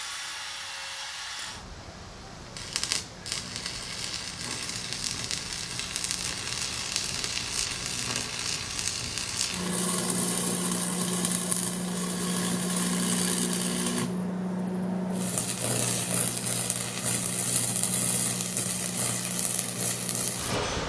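Arc welding on steel tubing from a Lincoln 225 stick welder: the arc crackles and sizzles with many sharp pops. In the second half a steady low electrical hum runs under the crackle, and there are a few short breaks between welds.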